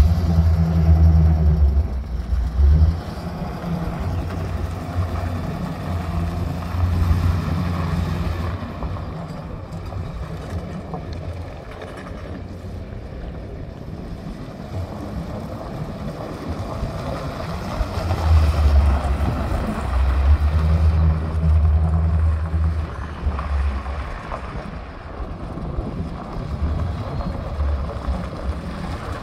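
Wind buffeting the microphone: a low rumble that comes and goes in gusts, heaviest in the first few seconds and again past the middle.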